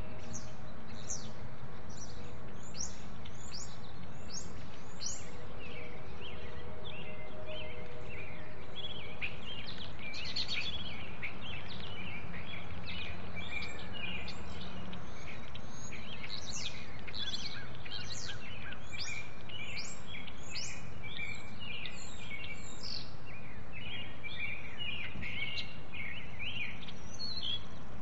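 House sparrows chirping: a busy run of short, quick chirps, thickest in the second half, over a steady low background noise.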